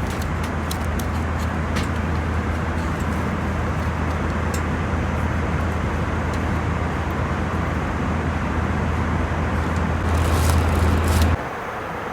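Steady low rumble of an Airbus A320's engines and airflow heard inside the passenger cabin, with a few light clicks in the first couple of seconds. It swells slightly about ten seconds in, then cuts off abruptly near the end.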